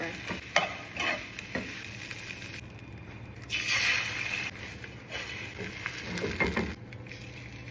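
Vegetables (broccolini, carrots and pepper) frying in butter and oil in a pan, with a sizzling hiss and scattered clicks of a utensil stirring them; the sizzle swells for about a second near the middle.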